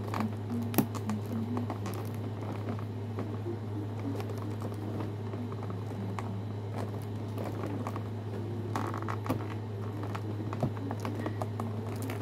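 Cardboard and plastic toy packaging handled as the robot is eased out of its box: scattered small clicks and taps, with a brief rustle about nine seconds in. A steady low hum runs underneath.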